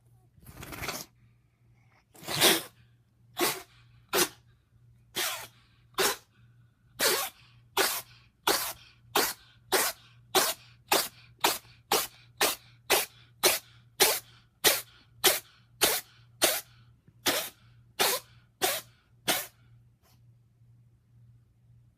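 A cat sneezing over and over in a long fit: one drawn-out sneeze, then about thirty short, sharp sneezes that come closer together as the fit goes on before stopping.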